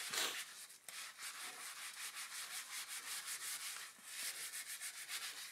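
Soapy wire wool scrubbed back and forth on the rim of a white Skyway Tuff 2 BMX mag wheel: a scratchy rubbing at about four strokes a second, breaking off briefly about four seconds in, as it scours off black brake-pad marks.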